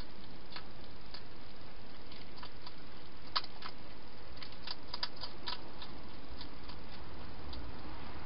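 Wild hedgehog eating from a dish inside a plastic feeding box: small irregular clicks of chewing, clustered near the middle, over a steady hiss.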